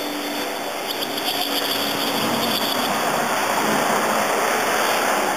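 Steady rushing background noise, with faint high chirps from barn swallow nestlings in their mud nest between about one and three seconds in.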